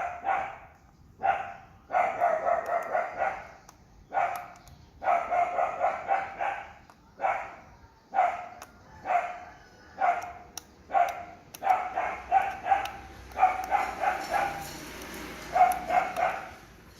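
A dog barking in quick runs of short yaps, several barks a second, with brief pauses between the runs.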